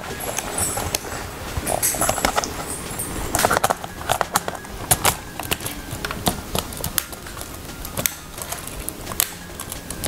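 Laptop keyboard being pressed down into its bay: irregular plastic clicks and taps of keys and clips as hands press along it to snap it in place.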